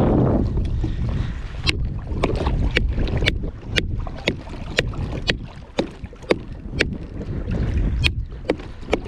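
A wooden fish bat striking a gaffed tuna again and again, sharp knocks about two a second starting about two seconds in: the fish being clubbed to kill it before it is brought onto the kayak. Wind rumble on the microphone underneath, heaviest at the start.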